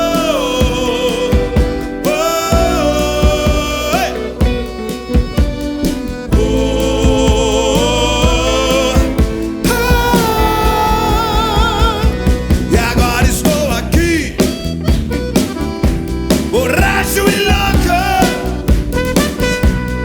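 Live rock band playing an instrumental passage, with a held, wavering melody line over the drums and rhythm section.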